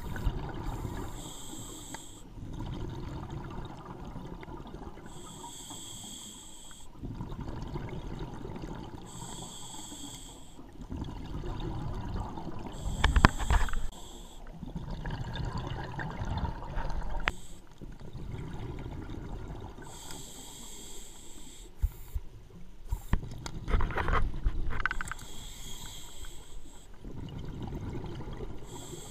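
Scuba diver breathing through an open-circuit regulator underwater: a hissing inhale every four seconds or so, each followed by a low bubbling burst of exhaled air, with a couple of sharper clicks around the middle.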